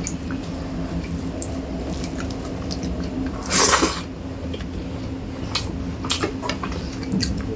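Close-miked eating sounds of rice and fish curry: scattered small clicks of the plate and wet squishes, with one louder, noisier rush about three and a half seconds in, over a steady low hum.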